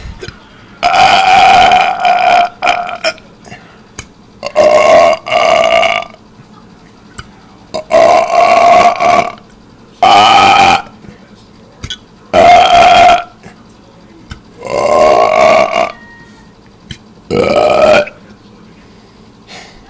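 A person burping deliberately and loudly, about eight long belches one after another, each up to a second or so, with short pauses between.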